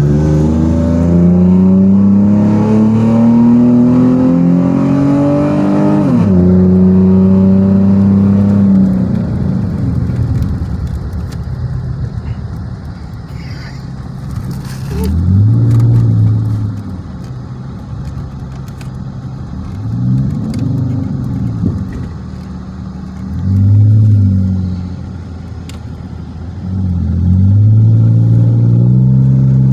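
Dodge Magnum's engine pulling hard, its pitch rising for about six seconds until an upshift drops it, then holding steady. After that the revs rise and fall briefly three times, and near the end it accelerates again. The car is running with a freshly reinstalled pedal box and a Thornton tuning chip, and the owner says it has a lot more pull.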